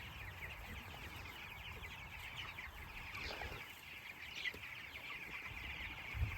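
A flock of young broiler chicks peeping continuously, many short high cheeps overlapping into a steady chorus.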